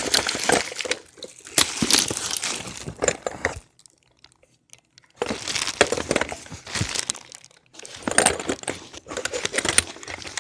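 Hands rummaging through a box of glass vacuum tubes: glass tubes clicking and clinking together with crinkling and rustling, in bursts, with a pause of about a second and a half near the middle.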